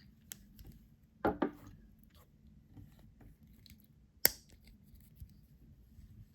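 A Benchmade Gold Class Proper slip-joint pocket knife being handled, with faint ticks and a short double knock about a second in. A single sharp click about four seconds in, the loudest sound, is typical of the blade snapping into the open position.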